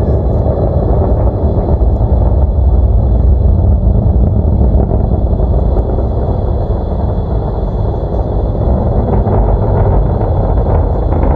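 Falcon 9 first stage's nine Merlin 1D engines heard from the ground during ascent: a loud, steady, deep rumble.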